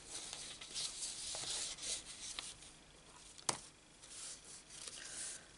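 Paper and card being shifted and smoothed by hand on a craft mat: soft rustling and rubbing, with one sharp tap about three and a half seconds in.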